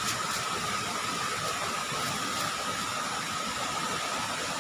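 A swollen, muddy river in flood rushing past in a steady, even wash of water noise. A thin, steady high tone sits over it.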